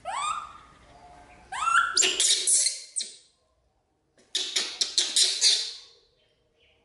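Baby macaque giving two short, rising squeaky cries in the first two seconds. These are followed by two spells of rapid, harsh clicking noise, the second starting just past the middle.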